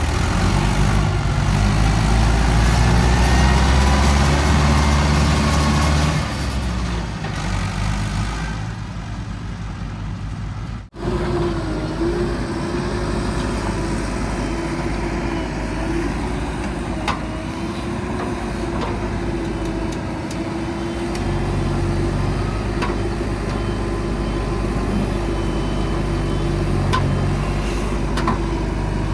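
Heavy diesel machinery working, with engines running loud and changing pitch as they rev and settle. About eleven seconds in the sound cuts off sharply, then picks up again as a steadier engine drone with a wavering whine over it.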